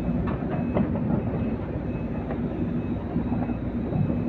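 Heavy machinery engine running steadily, with a few short metallic knocks, a couple near the start and one near the end.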